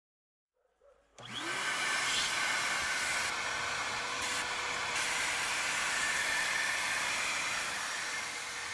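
Bauer 3-gallon, 3 peak horsepower wet/dry shop vacuum switched on about a second in, its motor rising in pitch as it spins up, then running steadily with a rush of air.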